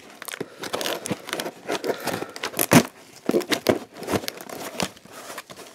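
Packing tape being picked at and peeled off a cardboard box, an irregular run of crackly rips and crinkles with the loudest rip about three seconds in.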